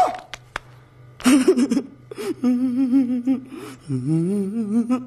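Audio of a film clip: a man's voice making drawn-out sounds with a wavering pitch, like a strained hum or whimper, after a sharp hit at the very start.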